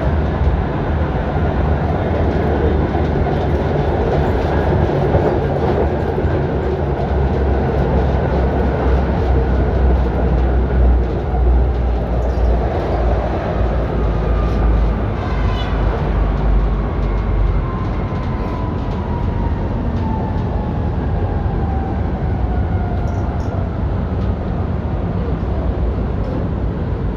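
Interior ride noise of a 1965 ASEA M28 tram running along the track: a steady low rumble of wheels on rails. Over the second half a high whine falls slowly in pitch, and a brief run of ticks comes about halfway through.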